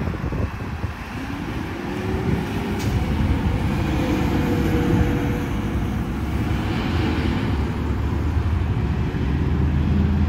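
A car engine idling with a steady low rumble, and a faint rising whine about a second in.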